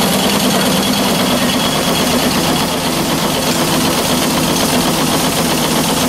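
Small steam engine running steadily with a fast, even mechanical rattle.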